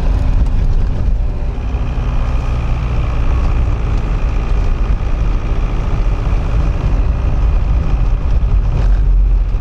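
Car driving on a road, heard from inside the cabin: a steady low rumble of engine and road noise.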